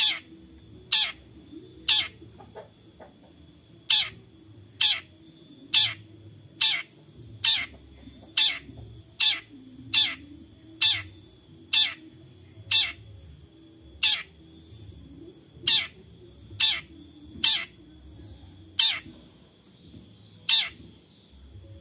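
Long-tailed shrike (cendet) repeating its 'toet' call about once a second. Each call is a short, sharp note that drops in pitch, with a couple of brief pauses in the series.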